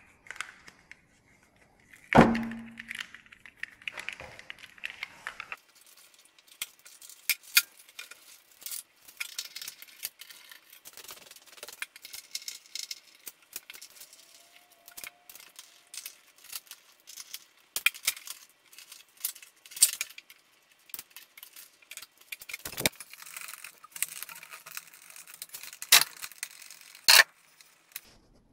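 Metal tools and parts clinking and clanking in irregular knocks and rattles as a vehicle is being dismantled, with a heavy clunk about two seconds in.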